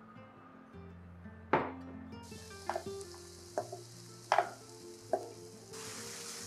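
Diced carrot and lotus root sizzling as they go into hot oil in a nonstick wok, with several sharp knocks of the bowl and wooden spatula against the pan. The sizzle starts about two seconds in and grows louder near the end as stirring begins.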